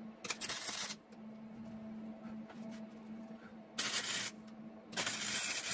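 Wire-feed welder arc sizzling in three short bursts, each under a second long, over a steady low hum.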